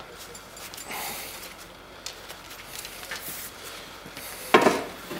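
Light clicks and scrapes of hand work on a snowmobile carburetor as its clamp is loosened and the carburetor worked free, with one louder short sound near the end.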